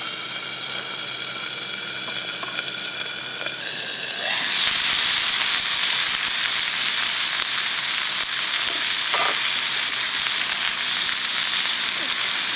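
Steak sizzling in a cast-iron skillet. For the first four seconds it is muffled under a metal lid. Then it turns suddenly louder and brighter as the lid comes off, and the meat goes on frying in a steady hiss.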